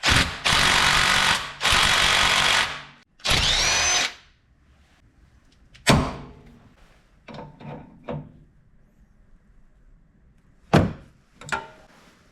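Power tool run in three bursts of about a second each, the last spinning up with a rising whine, followed by a handful of sharp knocks, some with a short metallic ring.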